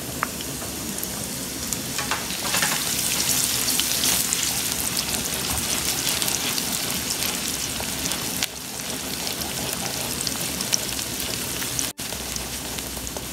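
Minced garlic sizzling and frying in hot oil in a frying pan, stirred with a wooden spoon, with a few light taps near the start. The sizzle gets louder a couple of seconds in, just after the garlic goes into the oil.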